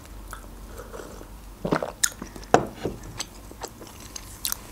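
Close-miked sipping from a mug and swallowing, with a few wet mouth clicks, then the ceramic mug set back down on the wooden board.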